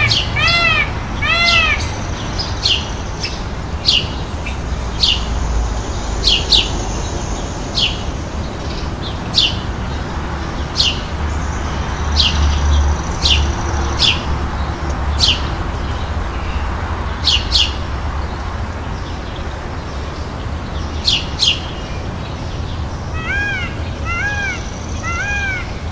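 Indian peafowl calling: a quick series of short, arched, cat-like wailing notes at the start and again near the end. Short high chirps come and go between them over steady background noise.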